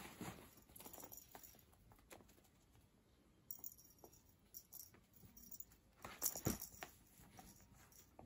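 Faint, scattered scuffs and taps of a cat pawing at a string toy and shifting on tatami mats, with a louder flurry about six seconds in.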